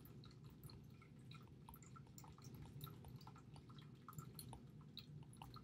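Near silence: a faint low room hum with scattered tiny ticks.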